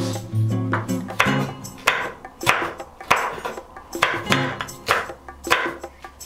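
Kitchen knife slicing scallions and chili peppers on a wooden cutting board: a steady run of crisp knocks of the blade on the board, a little under two a second, starting about a second in.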